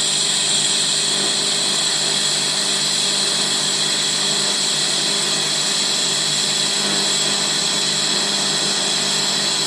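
TIG welding arc burning steadily with an even hiss and buzz.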